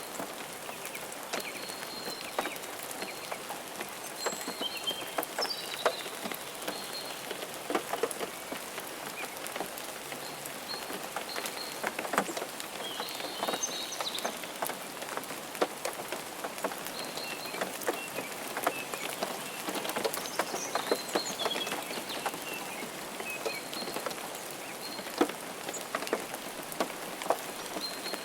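Steady rain falling, with many separate drops pattering and ticking sharply close by. Faint short high chirps come through the rain now and then.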